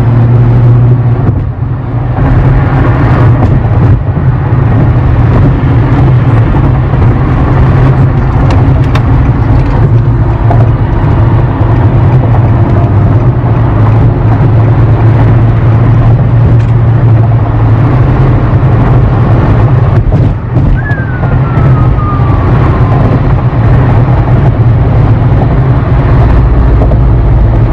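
Road and engine noise inside a moving car's cabin: a steady, loud low rumble.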